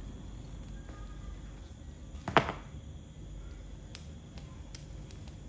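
A rubber-soled sandal slapping once onto a tile floor about two seconds in, over a steady low background hum, with a few faint ticks afterwards.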